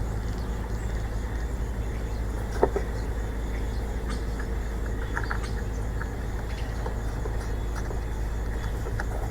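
Victor lawn mower engine running steadily, with one short knock about two and a half seconds in. The owner suspects a head gasket leak.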